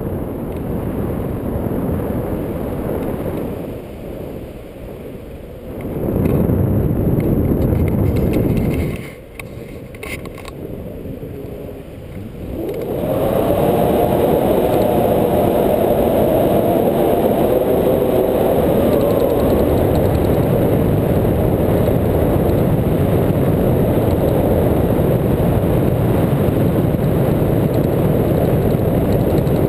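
Wind buffeting the microphone of a pole-held camera in the airflow of a tandem paraglider flight: a loud, low rush that eases for a few seconds near the middle, then runs strong and steady.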